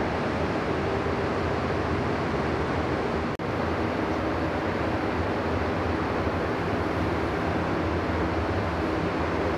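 Steady rushing air of a paint spray booth's ventilation fans, with a faint hum, broken once by a split-second gap about a third of the way through.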